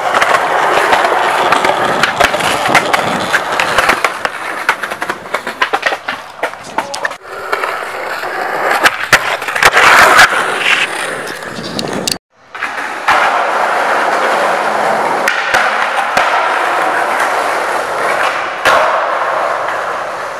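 Skateboard wheels rolling loudly on rough concrete, with sharp clacks of the board hitting the ground. The sound breaks off suddenly about twelve seconds in, then picks up again.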